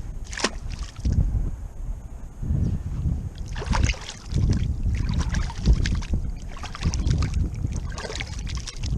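Gusty wind buffeting the microphone on a small fishing boat, coming in rising and falling gusts, with short crackling noises in between.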